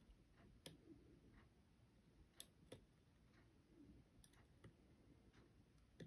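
Faint, scattered small clicks of metal lock-picking tools moving against the levers inside a lever lock, with the two strongest close together about two and a half seconds in.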